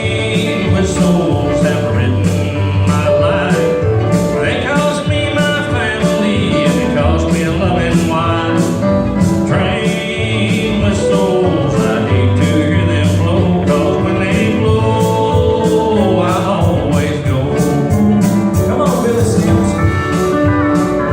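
A country band playing with a man singing over a steady beat.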